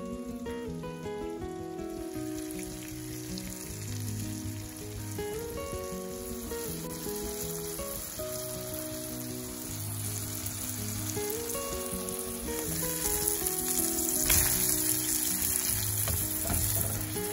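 Food frying in a hot pan: a sizzle that builds and is loudest in the second half, with a couple of sharp knocks near the end. A gentle background melody plays throughout.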